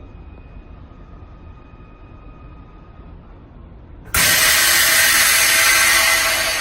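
Chamber vacuum packaging machine: a low steady hum, then about four seconds in a sudden loud hiss of air rushing back into the vacuum chamber, which starts to fade near the end.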